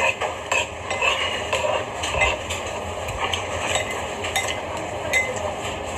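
Eating sounds from a bowl of tempura udon: chopsticks and a spoon making many small clicks against the bowl, with chewing.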